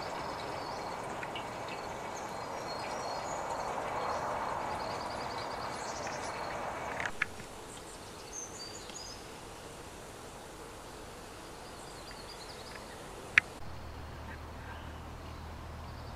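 Outdoor garden ambience: small birds chirping and twittering over a steady background hiss. A sharp click comes about seven seconds in, and a louder single click about thirteen seconds in, with a low steady hum after it.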